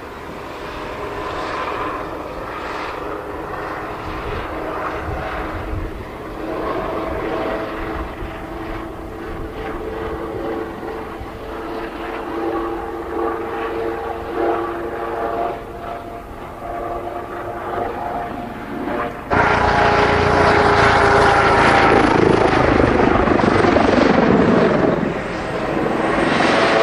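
Kawasaki OH-1 scout helicopter flying past, its twin turboshaft engines giving a steady whine over the rotor sound. About two-thirds of the way through the sound cuts abruptly to a louder, closer pass overhead, and its pitch falls steeply as the helicopter goes by.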